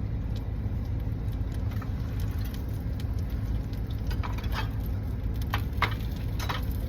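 Food crackling in a pan on a small camp stove turned down low, with a handful of sharp pops about four to six seconds in, over the steady low rumble of the van's heater running.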